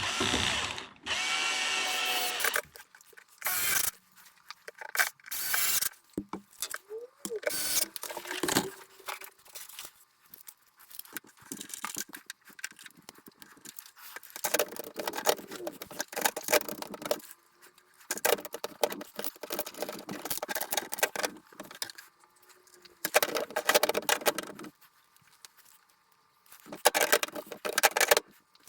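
Screws being tightened into the plastic housing of a Lay-Z-Spa pump during reassembly: a brief whine from a power screwdriver about a second in, then irregular bursts of ratchety clicking and rattling.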